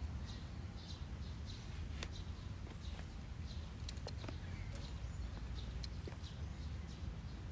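Background ambience: a steady low rumble with faint, short high-pitched chirps recurring through it, and a few sharp clicks.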